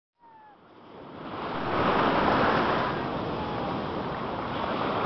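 Ocean surf washing up the beach: a wave's foam rushes in, swelling over the first two seconds and then settling into a steady wash of churning water.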